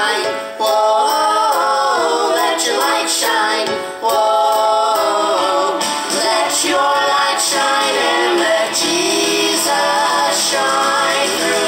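A song playing: singing voices over instrumental backing, lip-synced by the puppets.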